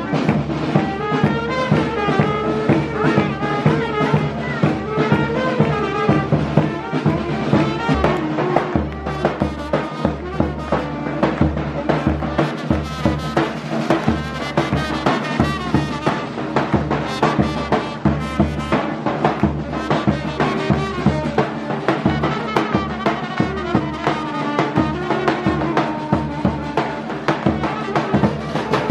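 Street wedding band of trumpet, saxophone, davul bass drum and snare drum playing a dance tune: a brass melody over a steady drumbeat.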